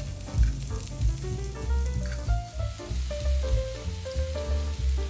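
Meatballs sizzling as they fry in oil in a large pan, under background music with a steady beat.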